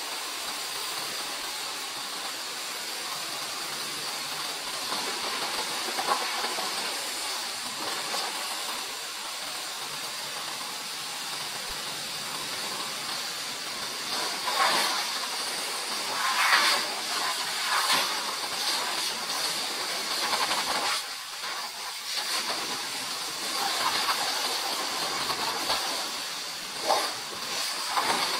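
Pressure-washer lance jet spraying with a steady hiss. In the second half the water drums louder and unevenly as it hits the wheel and wheel arch.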